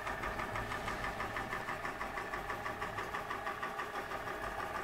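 Huxtable model hot air (Stirling-type) engine, gas-fired, running smoothly at a steady speed: an even, rapid mechanical beat of about six pulses a second from the piston and cast iron flywheel.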